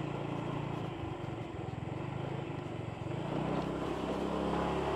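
Motorbike engine running while riding, with road and wind noise. It eases off about a second in and picks up again over the last couple of seconds.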